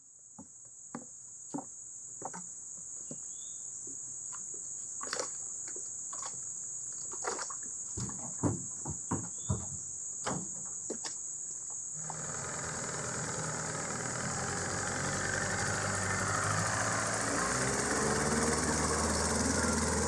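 Insects keep up a steady high-pitched drone while scattered knocks and clunks sound from gear being handled in an aluminium jon boat. About twelve seconds in, the boat's outboard motor starts running and grows louder as the boat gets under way.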